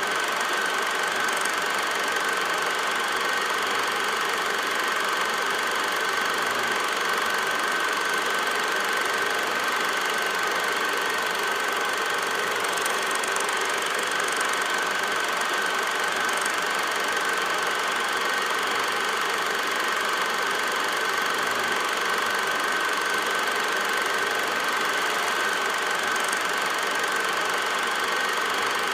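Film projector running: a steady mechanical noise, a constant high hum over hiss.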